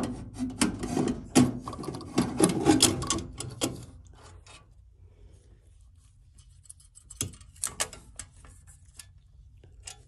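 Microwave magnetron being worked loose and slid out of its sheet-metal mounting: rubbing and scraping with quick knocks for about the first four seconds, then a few light clicks.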